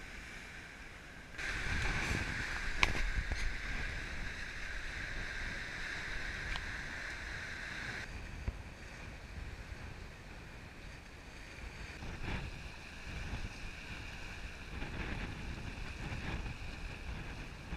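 Wind and sea noise aboard a boat under way in open ocean: water rushing along the hull and wind buffeting the microphone, which grows louder about a second and a half in. A single sharp knock about three seconds in.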